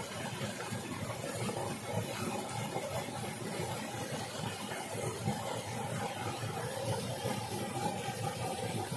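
Steady rushing of a small waterfall and stream, with wet squishing of a hand mixing a thick spice paste in a plastic plate.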